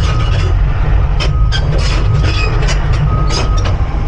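Cat 349 excavator's diesel engine running under load, its travel alarm beeping steadily about once a second, with sharp metallic clanks from the machine as it moves.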